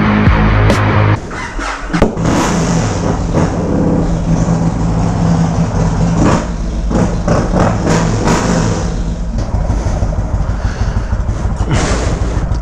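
Music ends about a second in, giving way to the Yamaha Road Star Warrior 1700's air-cooled V-twin engine and exhaust running steadily under way.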